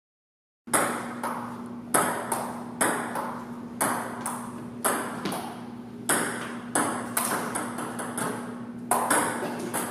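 Table tennis rally: the plastic ball clicks sharply off paddles and table about twice a second, starting about a second in. A steady low hum runs underneath.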